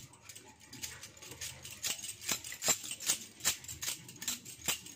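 Hands rolling a ball of paratha dough between the palms, with light clicking jingles about two or three times a second in time with the rolling.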